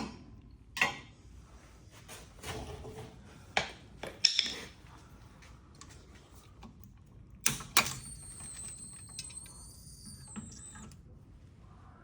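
Scattered metal clinks and clunks of tools and suspension parts being handled, with two sharp knocks close together about seven and a half seconds in. A thin, high steady whine follows for about three seconds.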